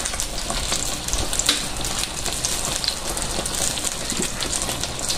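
Chicken pieces frying in hot oil in a wok, a steady sizzle with fine crackling.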